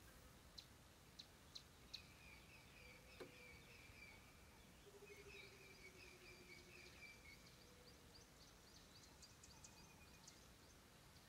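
Near silence with faint bush ambience: distant birds calling, with a few sharp ticks in the first few seconds, trilling calls through the middle and a quick run of chirps near the end.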